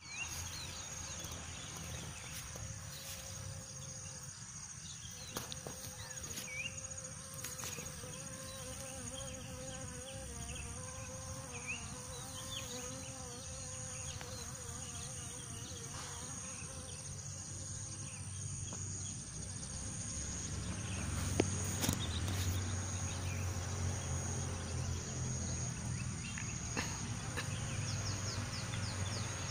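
Garden insects chirring with a steady high-pitched tone, and a wavering buzz in the middle part. Short chirps are scattered through it, and a low rumble grows louder about two-thirds of the way in.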